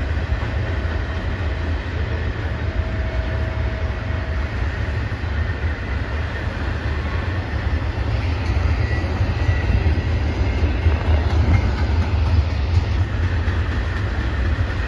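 Freight train rolling past: a steady low rumble of steel wheels on the rails.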